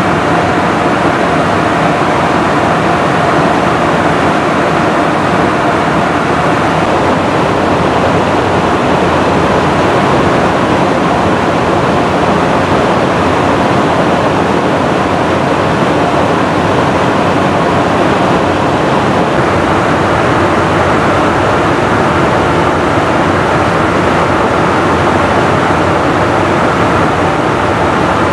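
Steady loud rush of airflow and jet engine noise inside a KC-135 Stratotanker's boom operator pod in flight.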